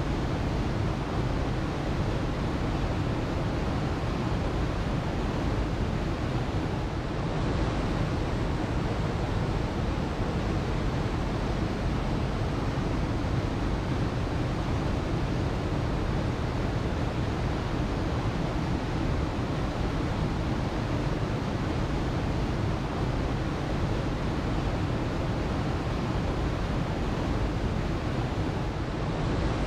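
Waterfall: a steady, deep rush of falling water, unbroken and even in level.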